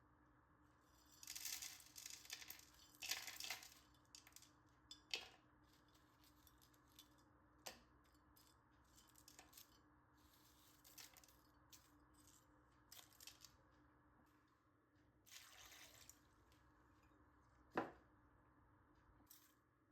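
Faint, intermittent handling sounds: short rustling or splashing bursts and a few sharp clicks and knocks, the sharpest about 18 seconds in.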